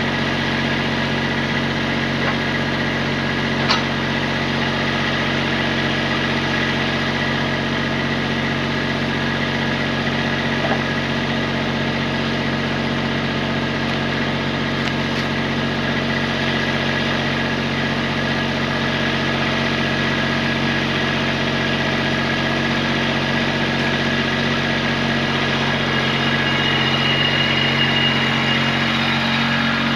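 Tractor diesel engine idling steadily, with a single sharp knock about four seconds in.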